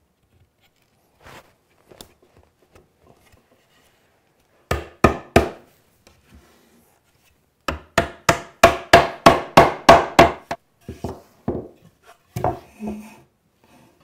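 A mallet knocking plywood drawer parts together at their dovetail joints for a test fit. There are three quick knocks about five seconds in, then a fast run of about a dozen, roughly four a second, then a few lighter taps.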